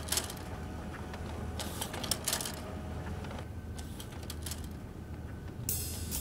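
Quiet room tone: a low steady hum with scattered faint clicks and ticks. Near the end, music with a hi-hat beat comes in.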